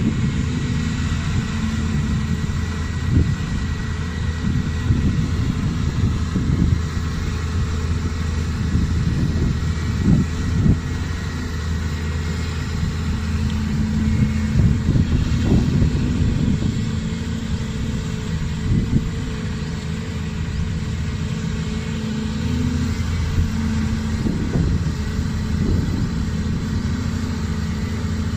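Volvo crawler excavator's diesel engine working steadily while it digs and dumps soil, its note swelling under load now and then, with scattered knocks and thuds from the bucket and falling soil.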